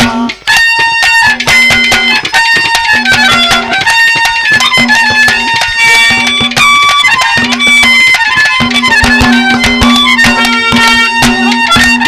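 Instrumental passage of live Haryanvi ragni folk music with no singing. A melody instrument plays shifting phrases over a low note that keeps returning, with steady drum strokes.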